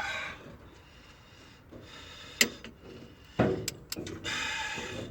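A click-type torque wrench set to 45 foot-pounds working a cylinder head bolt up to torque: a sharp click about halfway through, then a few knocks and a short scraping noise, with another sharp click at the very end.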